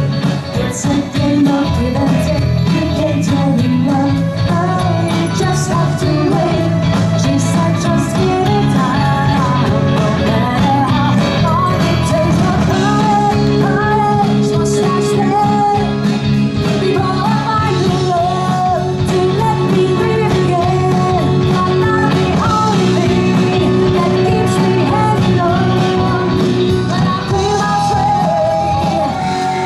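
Live rock-pop band playing a song, with a woman singing lead into a microphone over drums and electric guitar.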